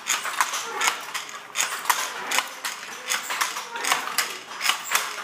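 Wooden handlooms weaving silk and lotus fibre: a rapid, irregular clatter of sharp wooden knocks from shuttles and beaters, about three or four a second.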